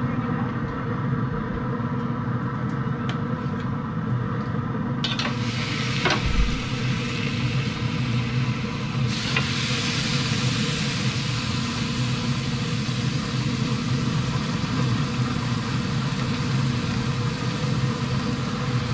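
Thick steaks sizzling as they go onto a hot cast iron griddle in a pellet smoker. The hiss starts about five seconds in and grows louder about nine seconds in, with a knock of metal tongs near six seconds. A steady low mechanical hum runs underneath.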